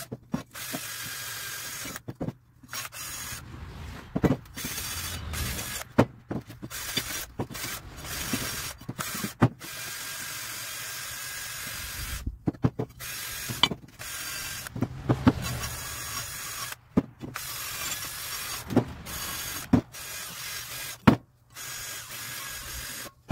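Cordless drill spinning a wire wheel brush against rusty steel clamshell motor mount plates, scouring off rust. The whir stops and restarts several times, with sharp clicks and knocks as the wheel and the plate bang about.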